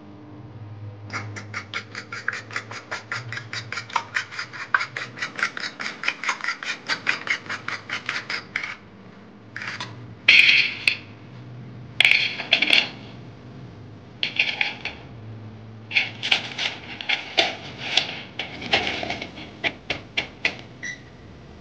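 A fork beating eggs in a stainless steel bowl: a fast, even clinking against the metal, about six strokes a second. After about nine seconds it gives way to louder metal scrapes, then irregular knocks of a metal masher crushing walnuts in a steel pot.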